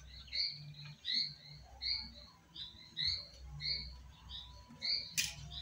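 A small bird chirping repeatedly: short high chirps, roughly one every half second to a second. A sharp click comes near the end.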